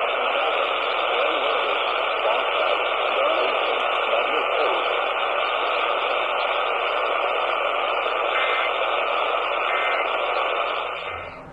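Steady radio static: an even hiss through a receiver's narrow audio band, fading out about eleven seconds in.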